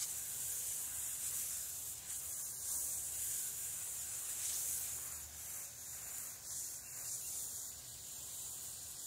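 Hose-end watering wand with a shower-head nozzle spraying water onto garden soil and plants: a steady hiss.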